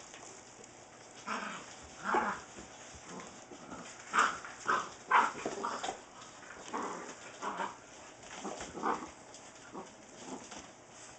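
Seven-week-old Saint Bernard puppies barking and yipping in short bursts while they play, with the loudest cluster of yips near the middle.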